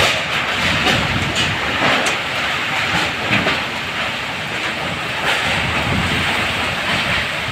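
Typhoon-force wind and heavy rain: a loud, steady rushing noise that swells and eases a little in gusts.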